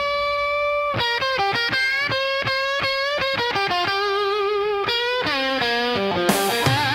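Distorted electric guitar playing a solo: one held note for about a second, then quick runs of notes with bends.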